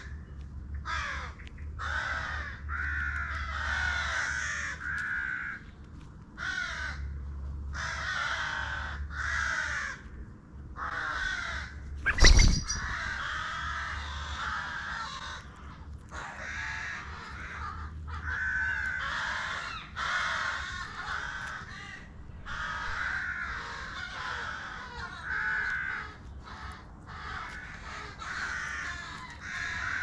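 Corvids calling over and over in harsh, closely spaced caws, almost without a break. Near the middle comes a single sharp knock, the loudest sound.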